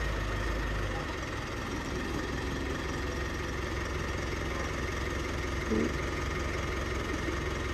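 An engine idling steadily with a low, even rumble. A short voice sound comes about six seconds in.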